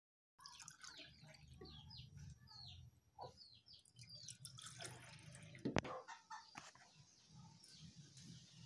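Birds cheeping in quick falling notes over a low hum for the first few seconds. Then liquid pours from a plastic dipper into a cup, with a sharp click about six seconds in.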